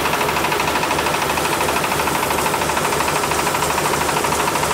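Single-cylinder Jiang Dong diesel engine running steadily with an even low pulsing, driving a MAKTANI MT212 rice huller as it mills paddy into white rice, with a steady whine from the mill over the engine.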